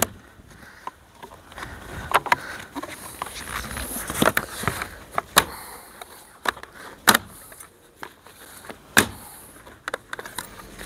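Brittle plastic trim clips snapping and cracking as a side trim is levered off the windscreen pillar of a Range Rover Sport with a pry tool: about six sharp cracks a second or two apart, the loudest at the very start. The clips are old and breaking.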